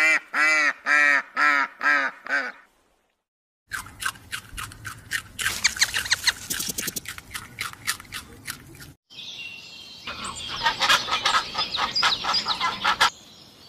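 A goose honking about six times in quick succession. After a short pause comes a stretch of rapid clicking and crackling. Then an American kestrel gives a fast run of high, sharp calls.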